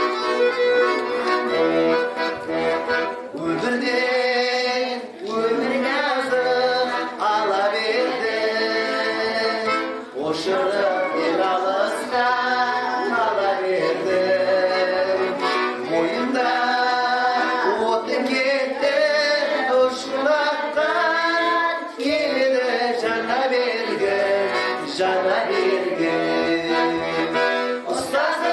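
Accordion playing a song accompaniment; after about three seconds a small group of women's voices joins in singing the melody over it.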